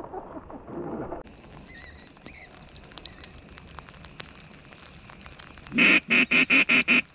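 Duck call blown in a quick run of about seven loud, evenly spaced quacks near the end.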